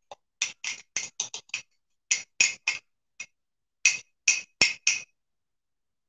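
A metal spoon tapping and scraping against a glass measuring cup and a ceramic mug while melted ice cream is poured out: about sixteen quick, light clinks with a slight ring, in uneven runs.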